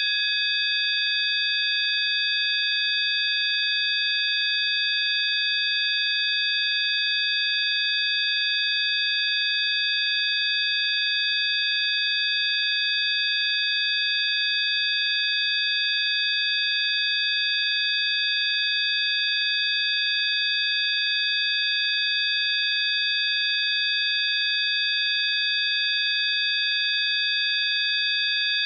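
Healing-frequency track of several steady electronic sine tones sounding together as one high, unchanging chord.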